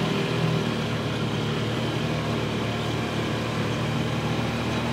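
Engine of an open, roll-caged off-road vehicle running steadily while driving on a dirt track, with road and wind noise of the open cab.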